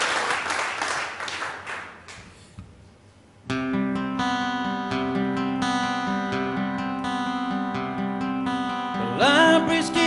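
Audience applause dying away, then about three and a half seconds in an acoustic guitar starts strumming chords in a steady rhythm. Near the end a man's voice comes in singing over the guitar.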